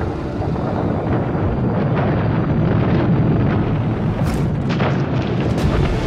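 Perito Moreno Glacier calving: a deep, continuous rumble of breaking ice that builds, with a few sharp cracks near the end as a section of the ice face gives way.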